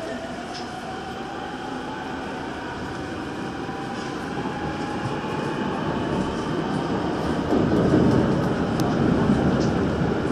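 Daejeon Metro Line 1 subway train pulling away from a station into a tunnel. Its electric traction motors give a whine that rises in pitch over the first couple of seconds, then the running rumble of wheels on rail grows louder as the train gathers speed.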